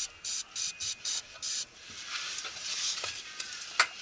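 Hand socket ratchet being worked in quick short strokes on a bolt at the Ford Ranger's front diff, a rasping burst of pawl clicks on each stroke about four times a second. After about a second and a half it gives way to a steadier scraping hiss, with one sharp click near the end.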